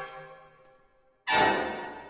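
Orchestral shock stinger sound effects: the tail of one sudden chord fades at the start, then another loud chord hits about a second in and dies away.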